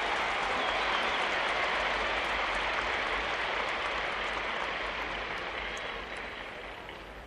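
Large crowd applauding, a dense steady clapping that dies down over the last second or two.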